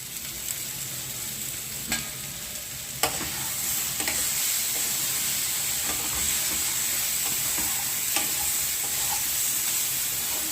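Brinjal (eggplant) pieces sizzling in a kadai as salt is stirred in, with a few sharp clicks of the spoon against the pan. The sizzle grows louder about three seconds in.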